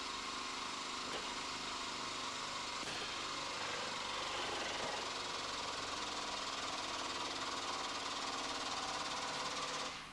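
Compressed-air-driven pump of a frame-straightening bench running steadily while pressure is applied to a pull on the damaged body, cutting off suddenly near the end.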